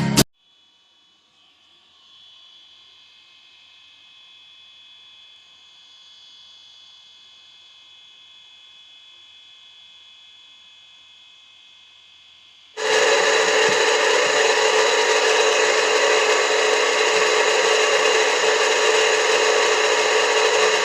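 Faint steady hum, then about 13 seconds in an electric water pump motor starts suddenly and runs loudly and steadily with a whining hum.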